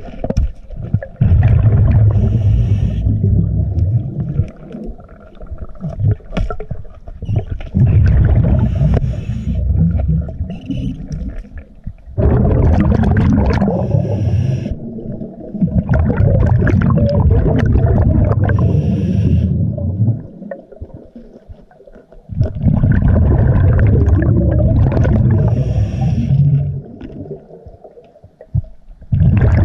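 A scuba diver breathing through a regulator underwater: long, loud rumbles of exhaled bubbles every few seconds, with quieter gaps between them that carry the hiss of inhaling.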